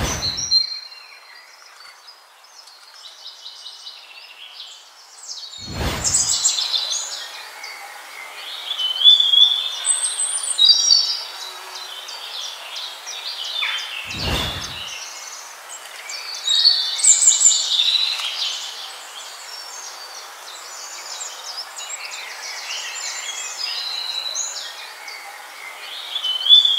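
Several songbirds chirping and trilling over a steady background hiss, with a short low whoosh about six seconds in and another about fourteen seconds in.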